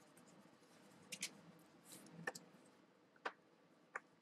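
Near silence broken by about half a dozen faint, short metallic clicks and ticks from a screwdriver and small Torx screws, as T10 screws are driven to fasten a hard drive into its metal bay.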